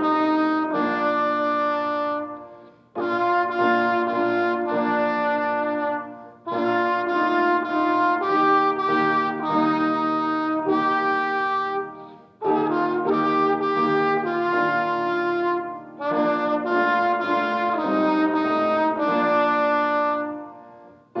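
Trumpet playing a slow melody over organ chords, in five phrases of a few seconds each, with short breaks between them.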